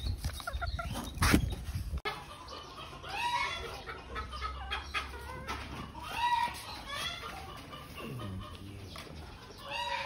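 Bantam chickens clucking, with several drawn-out calls that rise and fall, a second or two apart. In the first two seconds there is rustling and a sharp knock as the cardboard box the hens came in is handled.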